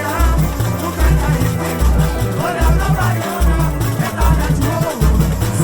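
Samba-enredo played by a samba school bateria: a heavy low drum beat repeating about once every second under busy percussion, with melodic lines above.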